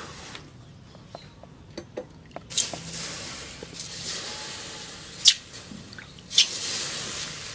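Water sloshing and splashing in a stone trough as a hand rubs a quenched steel cleaver blade in it. A few small drips and clicks come first, then the washing from about two and a half seconds in, with two sharper splashes near the end.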